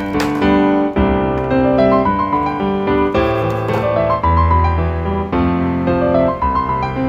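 Background instrumental music: a keyboard melody in short notes over long held bass notes.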